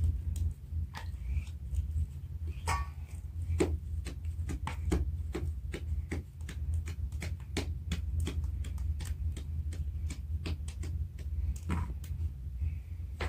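Hands slapping and patting balls of bread dough while rounding them, a quick irregular run of sharp smacks, a few each second, over a steady low rumble.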